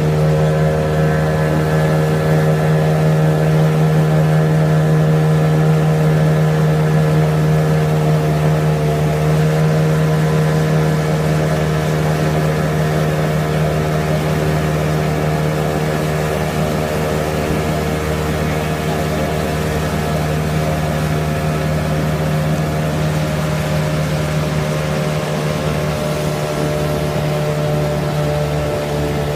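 Motorboat engine running at a steady cruising speed while towing a tube, a constant hum over the rush of the boat's wake.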